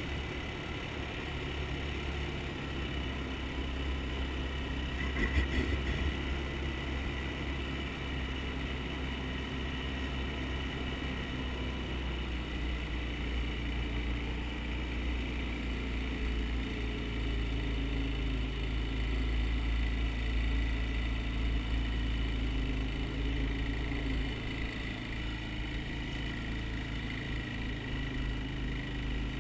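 Quad (ATV) engine running steadily as it rides over hard beach sand. A brief louder knock comes about five seconds in, and the engine note changes around the middle.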